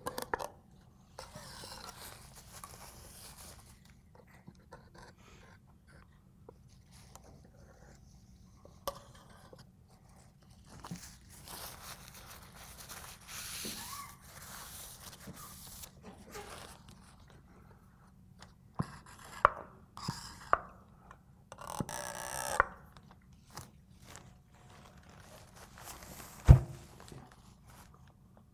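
Crumpled paper towels rustling and rubbing as a Hardinge lathe cross slide is wiped clean, in irregular patches. Several sharp knocks come in the second half, the loudest about 26 seconds in.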